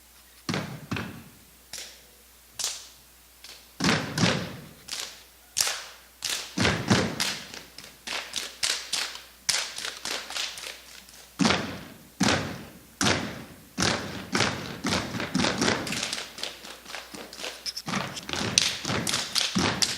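Step team stepping: rhythmic foot stomps and hand slaps in unison, a few spaced hits at first, then a faster, denser pattern from about four seconds in.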